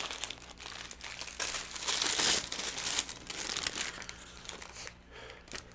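McDonald's paper food packaging being handled and crinkled, loudest about two seconds in.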